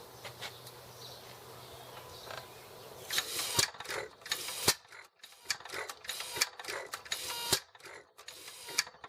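Irregular metallic clicking and clattering with a few sharp knocks, starting about three seconds in, from hands-on work on an antique hit-and-miss farm engine.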